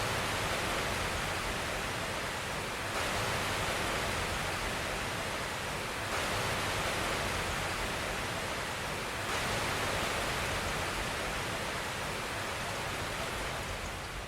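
Steady, even hiss of noise like rushing water, with a small step in level about every three seconds, fading down near the end.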